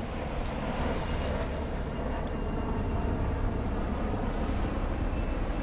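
Helicopter flying at a distance, a steady low rumble.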